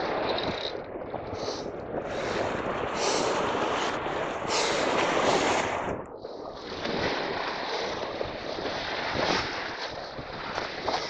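Wind buffeting the microphone over choppy water, with small waves washing onto a gravel beach. The gusting eases briefly about six seconds in.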